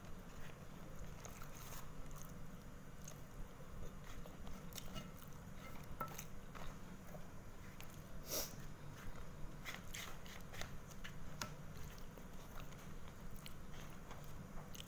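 Close-up eating sounds: chewing and mouth clicks, with a spoon scraping and tapping through sauce on a paper food wrapper, a scatter of small sharp clicks, the loudest about eight seconds in, over a low steady hum.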